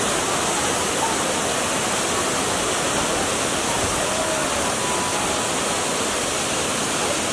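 Datanla waterfall: water rushing down the falls as a steady, even wash of noise.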